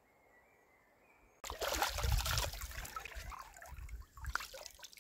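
Hands scooping and splashing cold water from a shallow spring pool, the water pouring and dripping back, irregular and with dull knocks. It starts suddenly about a second and a half in and eases off toward the end; before it there is only faint quiet.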